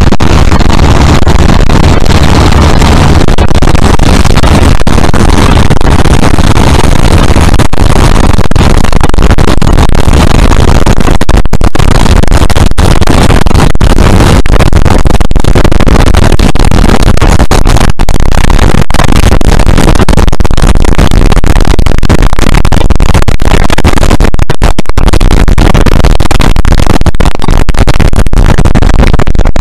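Two Class 47 diesel locomotives, each with a Sulzer twelve-cylinder engine, working hard at the head of the train, heard from an open coach window with wind buffeting the microphone. The sound is loud and overloaded, with many brief drop-outs, more of them after about eleven seconds.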